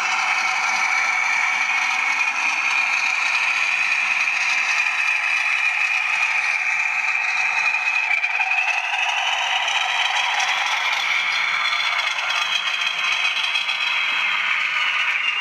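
OO gauge model diesel locomotive and its coaches running on the track: a steady whirring, scraping rattle of wheels and motor, with a high whine that dips slightly about halfway through, rises again, then settles.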